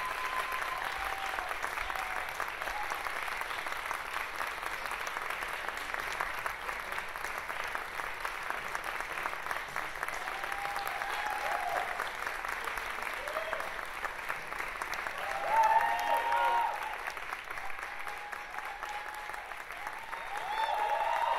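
Audience applauding steadily. Voices call out over the clapping a few times, loudest about fifteen seconds in.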